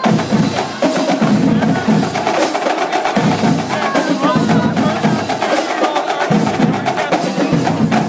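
Marching drumline playing a fast, dense cadence on snare drums and bass drums.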